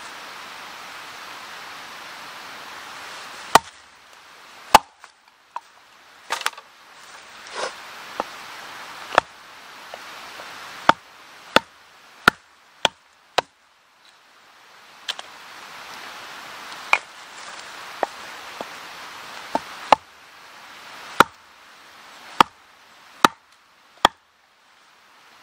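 Small hatchet splitting kindling from a short piece of wood on a log chopping block: about twenty sharp chopping knocks at an uneven pace, some in quick pairs, over a steady hiss.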